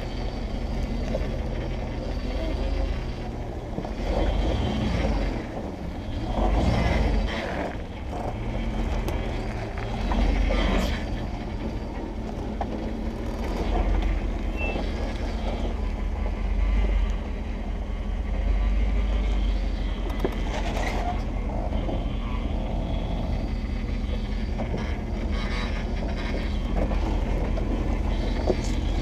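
Jeep TJ engine running at a low, steady crawl while the tyres grind over rock, with several knocks and scrapes along the way.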